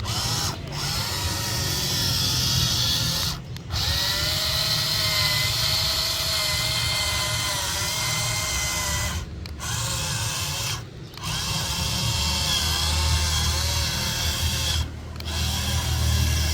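Toy excavator's small electric motors and plastic gearbox whining as it drives and works, the pitch wavering with load. The whine stops briefly about five times, as the controls are let go and pressed again.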